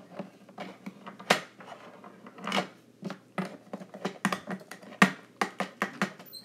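Small plastic toy figures and accessories clicking and tapping against a wooden tabletop as they are handled, in a quick, irregular run of sharp clicks.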